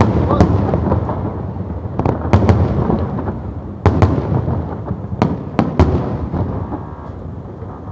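Aerial fireworks bursting: a rapid series of sharp bangs over a continuous crackle and rumble, thinning out near the end.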